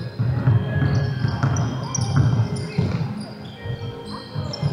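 Basketball being dribbled on a hardwood court, irregular thuds, mixed with short high squeaks of players' sneakers on the wooden floor.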